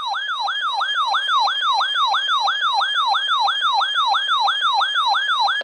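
Weather radio's warning alarm sounding: a loud, fast warbling siren tone, about four sweeps a second, which cuts off abruptly. It signals that the radio has decoded a severe thunderstorm warning.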